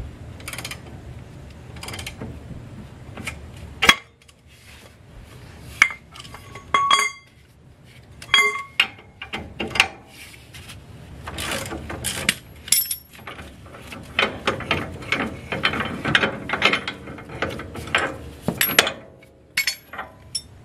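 Ratchet wrench clicking as it turns the screw of a C-frame ball joint press, pressing a new ball joint into the control arm, with a few ringing metal clinks of tools; the clicking comes in quick runs, densest in the second half.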